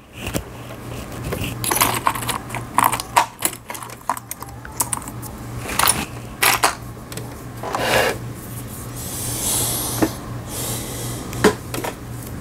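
Irregular clicks and light plastic rattles of hands working the parts of a Singer 3827 sewing machine, over a steady low hum, with a brief hiss about nine seconds in.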